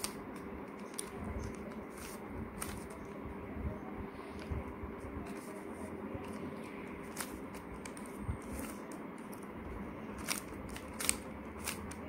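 Stickerless plastic 3x3 Rubik's cube being turned by hand, its layers clicking in quick, irregular clicks as an algorithm is run.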